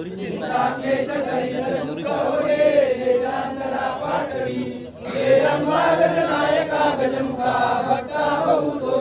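A crowd of devotees chanting a prayer together, many voices in unison, with a brief pause about halfway through before the chant goes on.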